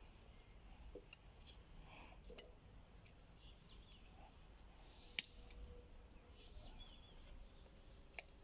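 A water buffalo's hoof being trimmed with a blade: a few faint sharp clicks over near silence, the loudest about five seconds in. Faint bird chirps.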